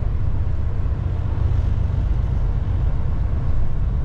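Semi truck's diesel engine idling: a steady low rumble.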